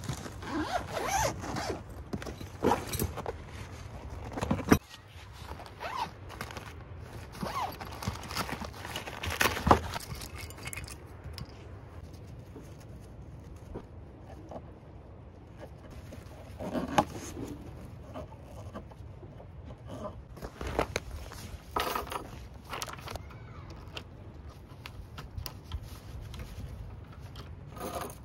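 A zipper running around a hard-shell carry case as it is unzipped, followed by scattered clinks, scrapes and knocks of metal deck pegs and tent fittings being handled on wooden decking.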